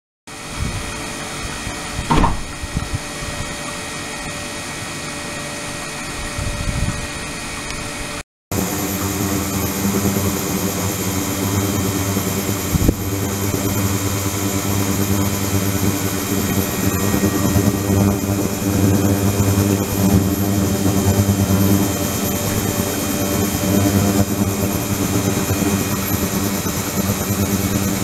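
Ultrasonic cleaning tank with circulating water running: a steady hum of many fixed tones over a hiss. It breaks off for an instant about eight seconds in and returns a little louder.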